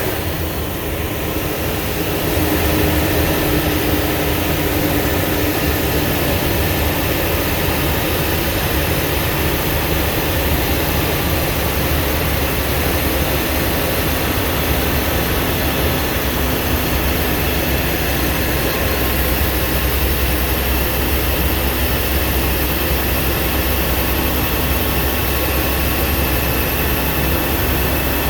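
Blue Bird school bus's engine and road noise while driving: a steady low drone that holds level throughout.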